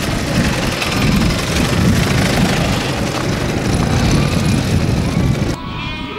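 Sidecar motorcycle engine running as the rig rides up and pulls to a stop. The sound cuts off abruptly near the end.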